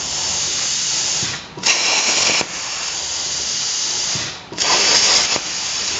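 CNC plasma cutting torch cycling on steel plate: a steady hiss of compressed air through the torch, twice cut off for a moment and followed by a louder, harsher blast of under a second as the arc fires and pierces the plate.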